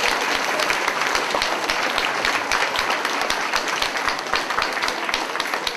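Audience applauding: the dense, steady clapping of many hands in a large room.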